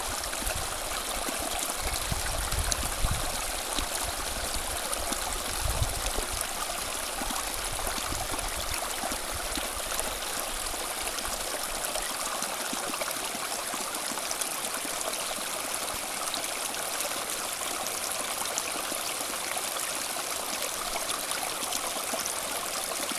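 Running water flowing steadily, an even rushing with a few low bumps in the first six seconds.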